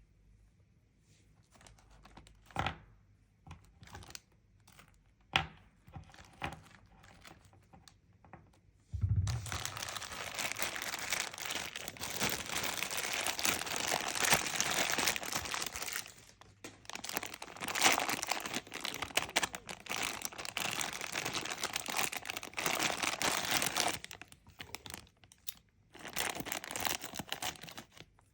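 A few light taps and clicks, then, about nine seconds in, continuous crinkling and tearing of toy packaging being opened by hand, breaking off briefly twice.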